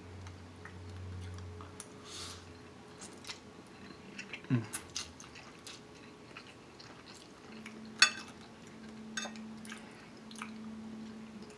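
Close mouth sounds of a person chewing a mouthful of lo mein noodles: soft, wet chewing with scattered small clicks, and one sharper click about eight seconds in.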